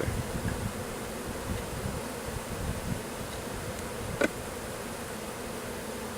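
Honeybees buzzing steadily in the air, a many-bee hum, with one brief louder buzz sweeping up and down in pitch about four seconds in.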